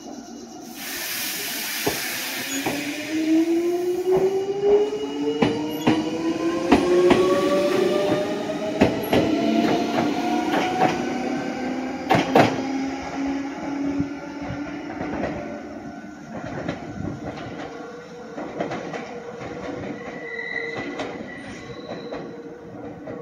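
Red Meitetsu electric local train pulling away from the platform. A burst of air hiss comes about a second in, then the traction motors' whine rises steadily in pitch as the train accelerates, with the wheels clicking over rail joints. The sound fades as the train runs off.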